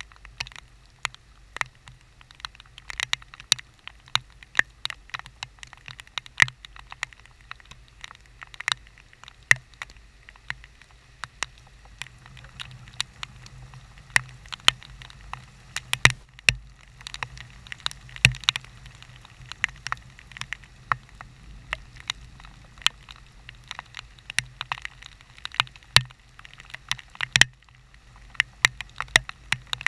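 Raindrops striking the camera and the surface around it, a stream of irregular sharp ticks, several a second, over a faint low steady background noise.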